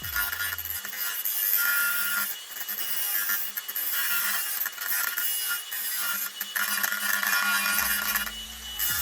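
A tool scraping and cutting away at a chainsaw's sprocket cover in uneven rasping stretches with short pauses, trimming the cover so wood chips can clear the case.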